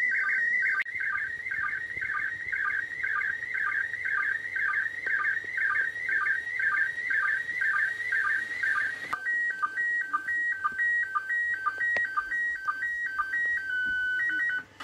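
Slow-scan TV signal from the ISS in PD120 mode, received on 145.800 MHz FM on a Yaesu FT-847 transceiver. It is a continuous high, warbling stream of audio tones with a short low sync blip about twice a second. About nine seconds in, it changes to a stepped two-note warble, and it stops just before the end.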